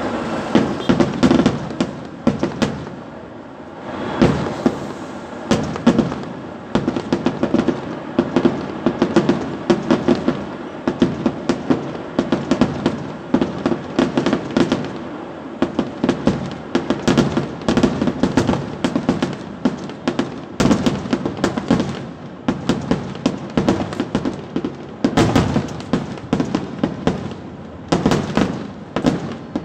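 Kerala vedikettu fireworks barrage: a dense run of sharp bangs and crackles, several a second, over a continuous rumble, with a brief lull about three seconds in.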